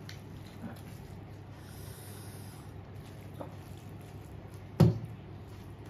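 Soft eating sounds from a person eating rice and fritters by hand, over a steady low room hum, with one sharp click about five seconds in.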